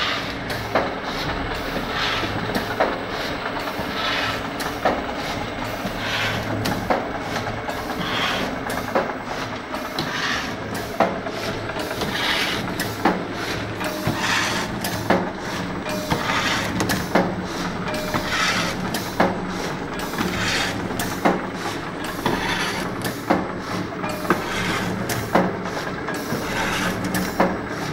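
Paper-core (cardboard tube) cutting machine running: a steady low hum, a sharp click or knock every second or two, and short hisses in between.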